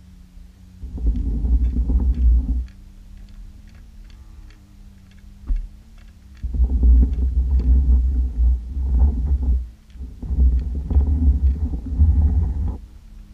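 Low rumbling noise heard underwater through a waterproof camera housing, in three long bursts of a few seconds each, over a steady low hum and faint scattered clicks.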